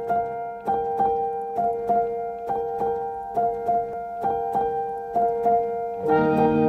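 Background music: a light keyboard tune of evenly paced notes, with a fuller accompaniment of lower notes coming in about six seconds in.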